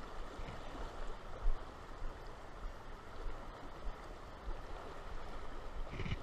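Shallow river water running steadily over riffles, an even hiss, with a brief thump about one and a half seconds in.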